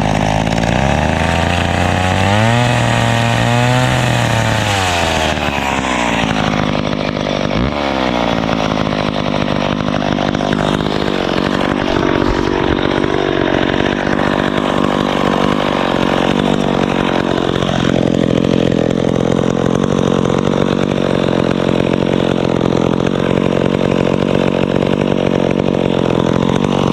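Small two-stroke chainsaw running at high speed and cutting wood. Its engine pitch rises and falls a few times in the first several seconds, then holds steady.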